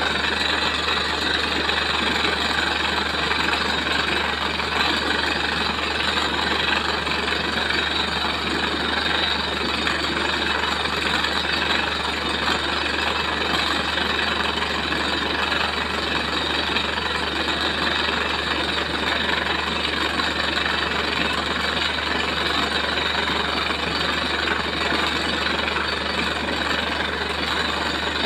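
Truck-mounted borewell drilling rig running steadily, its engine and air compressor driving a gush of water and spray up out of the newly struck bore.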